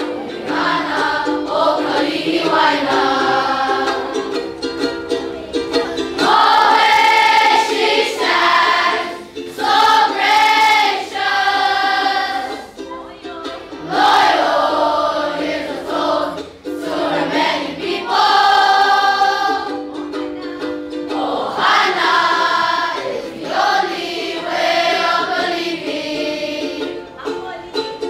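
A school choir of children singing their alma mater in unison, in sung phrases a few seconds long with short breaths between, over a steady instrumental accompaniment.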